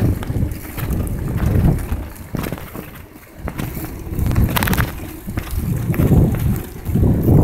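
Wind buffeting the microphone of a phone carried on a moving bicycle: uneven low rumbling gusts, with a few short clicks.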